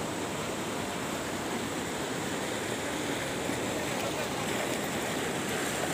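Fast, muddy river water rushing and churning along a concrete wall, a steady, even rushing.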